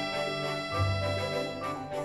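Background music: sustained keyboard or organ-like chords with a melody of held notes.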